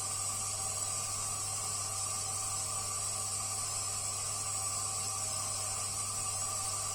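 Combustion-air fan of a Toyotomi FF (forced-flue) kerosene heater running with an abnormal noise: a steady low hum with a high whining tone over a hiss, unchanging throughout.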